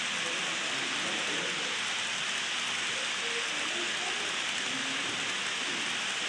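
HO-scale model coal train's hopper cars rolling past on the track: a steady rushing hiss of small metal wheels on rail.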